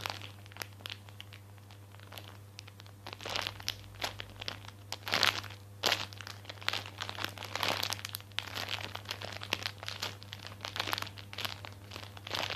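Irregular crinkling and rustling from a squishy toy being handled, in short bursts, over a steady low hum.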